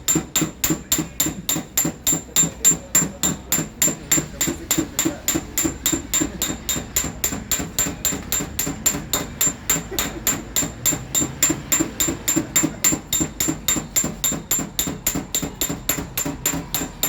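Steady, even tapping of a small hammer on a car fender's sheet metal, about four taps a second, as in paintless dent repair, where the metal is tapped down a little at a time.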